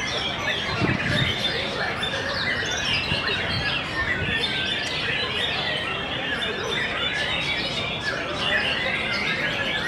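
White-rumped shamas (murai batu) singing in contest: a dense, unbroken run of overlapping quick whistles, trills and chatter from several caged birds at once.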